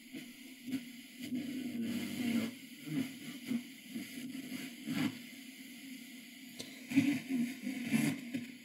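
Grundig 3160 valve radio's loudspeaker giving hiss, crackle and wavering tones as the tuning knob is turned between weak signals. Reception works but sounds poor: the radio section still has its original capacitors and is running on about 198 volts mains.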